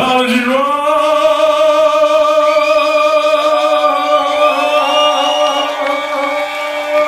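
A man's voice holding one long sung note into a microphone, steady and unaccompanied after the drum-and-bass beat cuts out at the very start.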